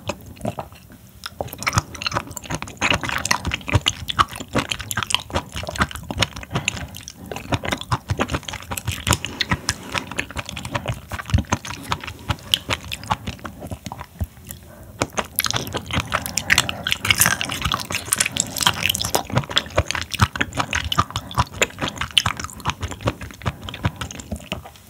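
Close-miked chewing of raw seafood sashimi: dense, irregular wet clicks and smacks of a mouth working, with a brief lull a little past halfway.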